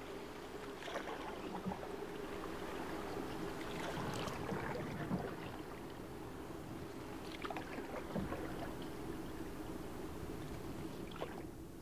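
A canoe being paddled: paddle strokes swishing and dipping into the water every few seconds, over a steady wash of moving water.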